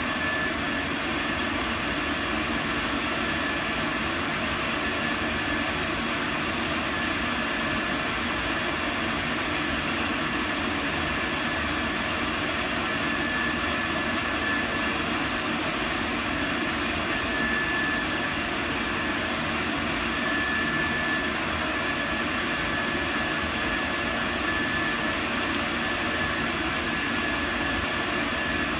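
Laser engraver at work marking a pistol slide: a steady rushing machine noise, with a thin high whine that fades in and out.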